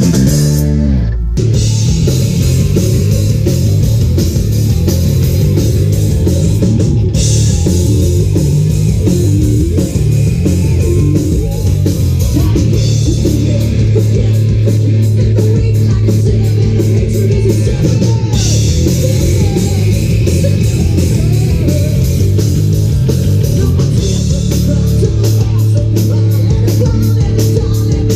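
Live hard rock band playing loud: distorted electric guitars, bass guitar and a drum kit with crashing cymbals, and a singer on a microphone.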